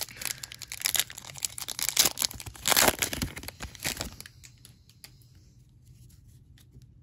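A glossy trading-card pack wrapper being torn open and crinkled as the cards are pulled out, loudest about three seconds in and dying away after about four seconds.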